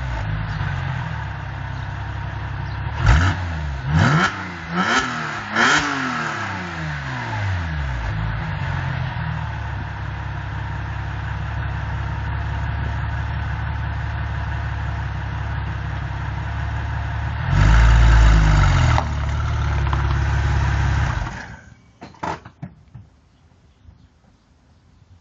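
Porsche 996 Carrera 4S flat-six through a sport exhaust (200-cell catalysts, stainless 'spaghetti' headers, stock silencers): the revs fall away, then four quick throttle blips, then a steady idle. One longer, louder rev follows, and the engine cuts off near the end, followed by a couple of clicks.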